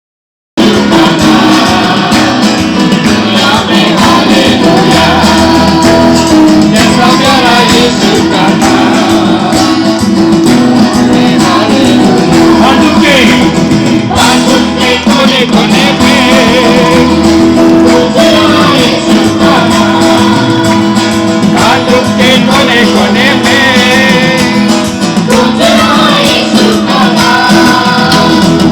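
Music: a song with singing over a steady instrumental accompaniment, starting about half a second in.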